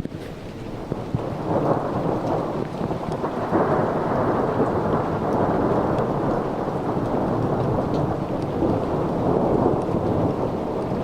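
Rolling thunder from an overhead thunderstorm, a long rumble that swells about a second in and keeps going, with rain falling.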